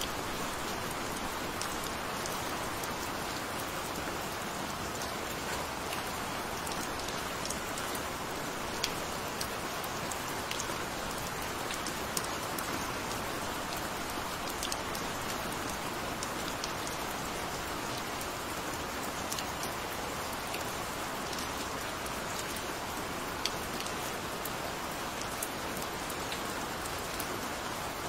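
Steady gentle rain falling, an even hiss with scattered sharp ticks of single drops, a few of them louder.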